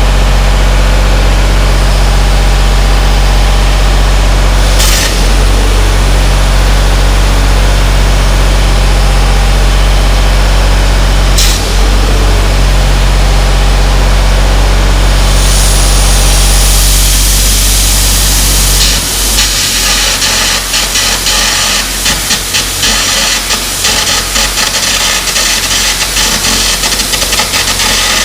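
A machine runs with a steady low hum, with two sharp clicks. Then a loud hiss of compressed air comes in, and from about two-thirds through, carbon arc gouging on a steel dozer frame begins: the arc crackles hard and irregularly under the air blast.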